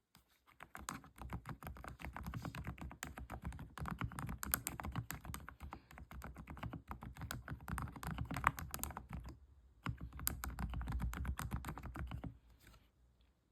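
Fast typing on a computer keyboard: a dense run of key clicks with a short break about nine and a half seconds in, stopping shortly before the end.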